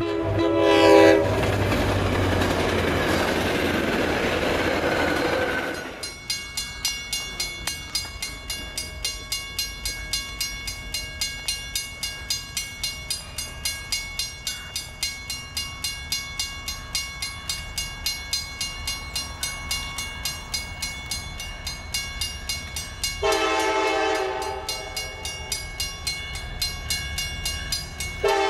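Grade-crossing warning bell ringing in an even rhythm of about two to three strokes a second as a train approaches. A Norfolk Southern SD60E locomotive's air horn sounds a long blast about 23 seconds in, and another starts at the very end. The clip opens with about six seconds of loud rushing noise.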